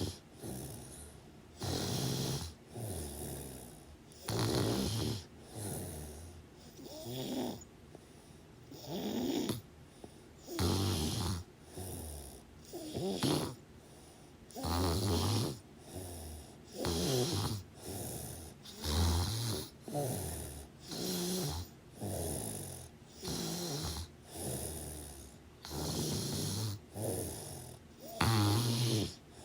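Loud snoring: a steady train of short snores about one to two seconds apart, with quiet gaps between.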